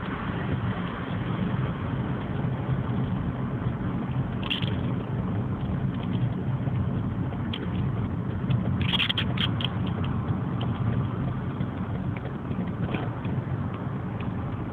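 Steady low background rumble picked up by a mobile phone's built-in microphone, with a few short clicks about four and a half and nine seconds in.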